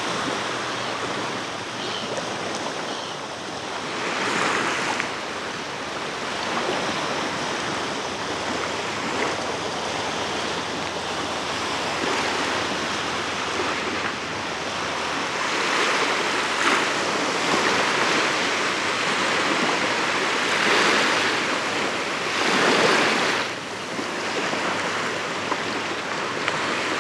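Small sea waves lapping and washing onto a sandy beach in a steady surf hiss, with a louder wash swelling up every few seconds.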